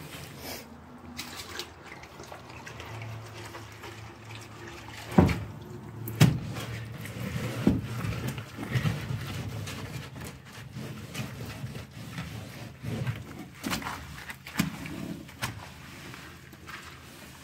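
A wet rag wiping and scrubbing rough wooden boards, with water splashing and dripping and irregular knocks, the sharpest about five and six seconds in.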